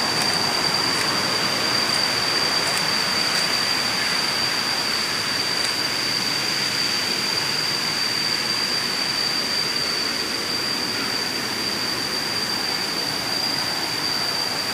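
Water rushing over rock slabs in a forest stream, a loud steady hiss, with a steady high-pitched drone over it.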